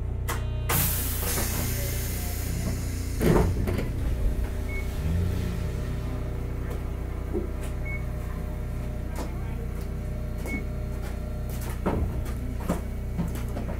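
Inside Hakodate City Tram 3000-series car 3002: the steady hum and tones of its Toyo GTO VVVF inverter and traction motors. A burst of air hiss comes about a second in and a loud clunk about three seconds in, with three faint short beeps and a few clicks later.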